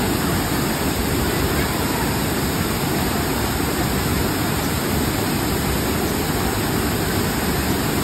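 Steady rush of a wide, tiered waterfall pouring over rock ledges into a shallow pool.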